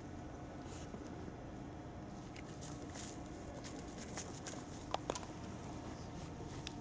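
Soft rustling and scattered light ticks in dry grass as a cat paws and bites at a small toy, with two sharper clicks about five seconds in.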